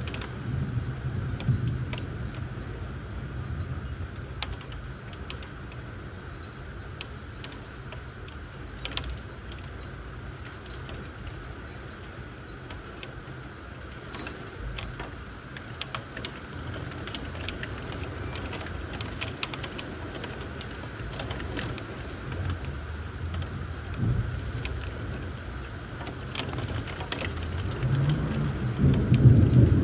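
Thunderstorm: steady rain with many sharp drop ticks hitting a surface, and low rolls of thunder near the start and again, louder, near the end.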